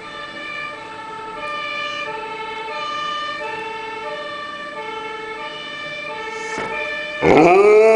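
Fire engine two-tone siren, switching between a high and a low note about every two-thirds of a second. About seven seconds in, an Afghan hound breaks into a loud howl that rises in pitch and then holds, drowning out the siren.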